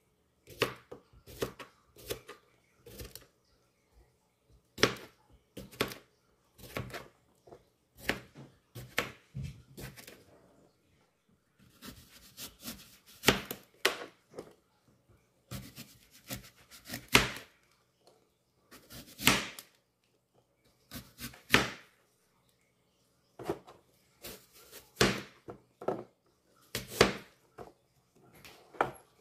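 Kitchen knife cutting a cucumber and then a green apple on a cutting board: irregular knocks as the blade goes through and meets the board, some strokes drawn out a little longer.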